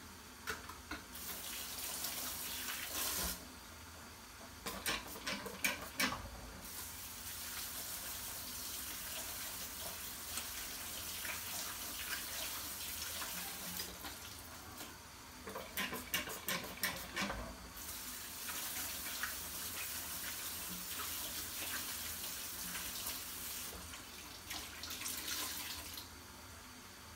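Water running from a tap into a sink in three long spells, with short clusters of clinks and knocks about five and sixteen seconds in, as things are handled at the sink.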